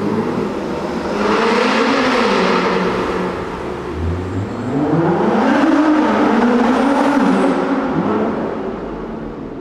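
Two sports cars accelerating hard one after the other in a tunnel. A dark grand tourer pulls away first, its engine pitch rising and shifting through the gears. About four seconds in, a Nissan GT-R's twin-turbo V6 launches with a steeply climbing engine note that holds high and then fades as the car goes down the tunnel.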